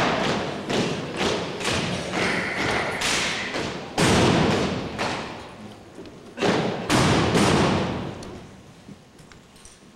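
Armed drill team's rifle and boot impacts thudding on a gymnasium floor and echoing around the gym, in a run of hits with the loudest about four seconds in and two more around six and a half and seven seconds.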